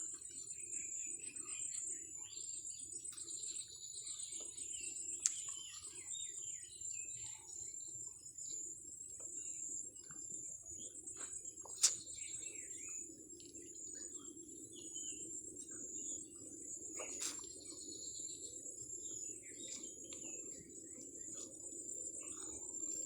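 Small birds chirping and calling over a steady high-pitched whine, with three sharp clicks, the loudest about halfway through.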